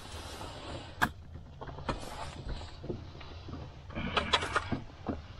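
Handling noises from a wooden fish-measuring board with a metal ruler and a whitefish: scattered clicks and knocks, one sharp knock about a second in, and a busier spell of scraping and rustling about four seconds in.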